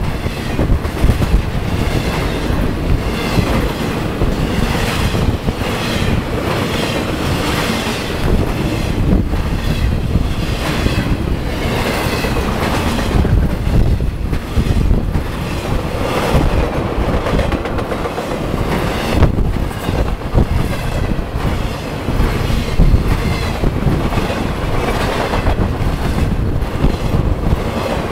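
BNSF intermodal freight train passing close by: a loud, steady rumble of flatcars carrying highway trailers, with a constant clatter of wheels on the rails.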